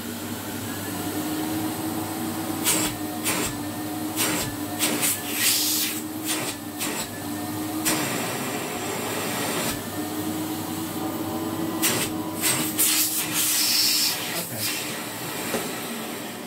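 Philips Computer Control cylinder vacuum cleaner running, its 1150-watt twin-fan motor humming steadily, with repeated short clicks and bursts of hissing as hands press on the lid. The hiss comes from an air leak past a poorly sealing dust bag, which keeps the suction weaker than it should be.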